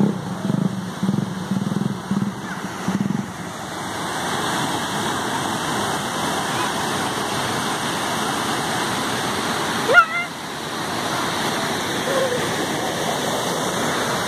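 A small motorcycle's engine runs for about the first three seconds as it rides through shallow floodwater, then a steady rush of fast-flowing floodwater in a swollen arroyo fills the rest. About ten seconds in comes one short, sharp high-pitched sound.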